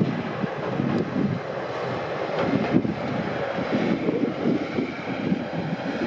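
KiHa 40 diesel railcars running past at a distance, a steady engine and rolling noise, with wind buffeting the microphone.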